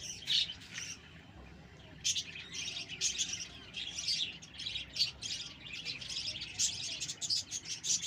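A flock of budgerigars chattering and chirping in rapid, overlapping calls. There is a brief lull about a second in, then continuous busy chatter.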